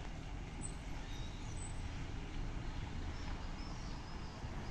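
Road traffic passing: cars driving by with a steady low rumble.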